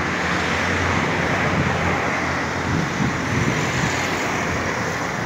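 City street traffic: cars driving past on the road beside the sidewalk, a steady traffic rumble, with one car passing close by about three to four seconds in.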